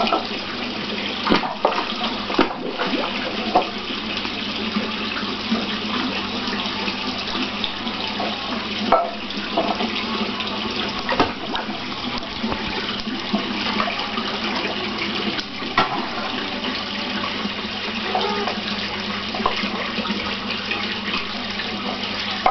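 Continuous rush of running water in a large catfish pond, over a steady low hum, with short sharp splashes now and then as the big catfish feed at the surface.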